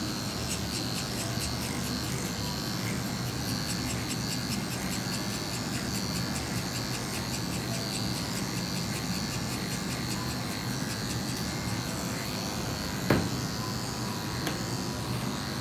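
Corded electric dog-grooming clippers running steadily with a high whine as they cut a dog's fur. A short sharp sound comes about thirteen seconds in.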